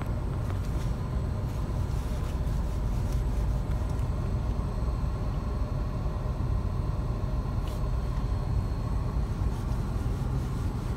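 Steady low rumble of idling vehicle engines, heard from inside a stopped car's cabin.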